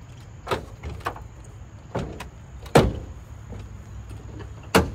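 Knocks and clunks from a 2022 GMC Sierra pickup's multi-function tailgate as it is opened into its step setting and a person climbs up onto it. There are about five sharp knocks, the loudest about three seconds in and another just before the end.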